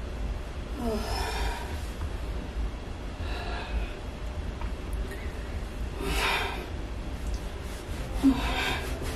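A woman in labour breathing heavily through a contraction with back pain: four long, deep breaths blown out about every two to three seconds, a couple of them starting with a short voiced sound, the last one the loudest. A steady low hum runs underneath.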